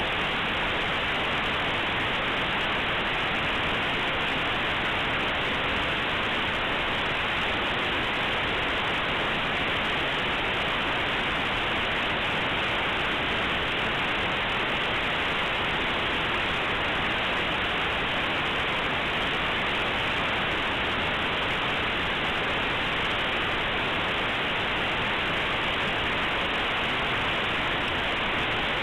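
A compressed Linux kernel image played as raw audio through aplay: a steady, unchanging hiss like static. The compressed data is close to random, so it comes out as plain noise with no tones or rhythm.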